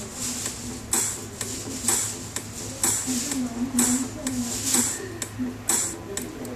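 Repeated sharp clicks and light clatter, roughly one a second, over a steady low hum.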